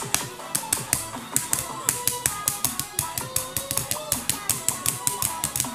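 Background music: a quick, steady clicking beat, about four to five clicks a second, under a simple melody.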